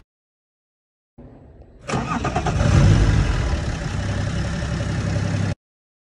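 BMW 330xd's M57 straight-six diesel starting: it catches about two seconds in, flares, then settles into a steady idle. The sound cuts off suddenly near the end.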